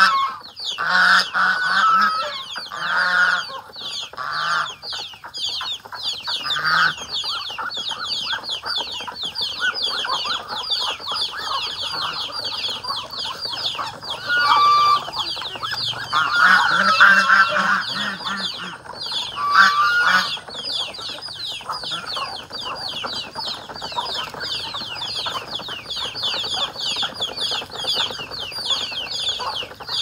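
Mixed farmyard poultry feeding: geese honking in bunches, loudest in the first few seconds and again about two-thirds through, with chickens clucking. Under them runs a constant fast, high chirping.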